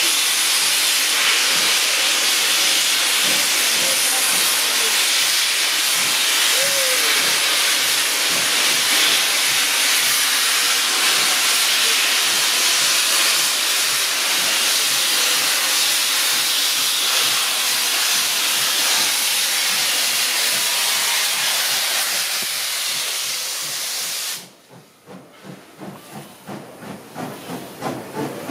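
Loud, steady hiss of steam blowing from a steam locomotive as it starts away. About 24 seconds in the hiss cuts off suddenly, leaving a rhythmic clatter that quickens as the train's carriages roll past.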